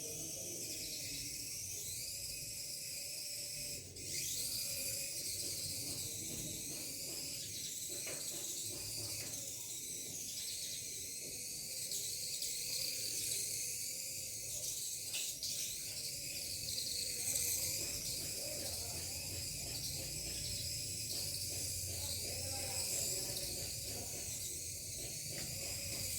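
Tiny 1:100 scale RC car's micro electric motor and gears whining as it drives, the high whine rising and falling in pitch with the throttle over a steady hiss.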